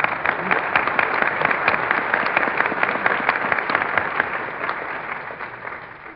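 Dinner audience applauding, a dense patter of many hands clapping that starts abruptly and fades away near the end. It is heard on an old radio broadcast recording with a narrow, muffled sound.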